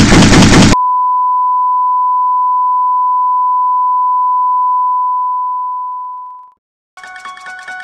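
A loud pulsing beat cuts off abruptly and gives way to one long, steady, high electronic beep, the flatline tone of a heart monitor. The tone holds for several seconds, then fades away. Soft chiming music begins near the end.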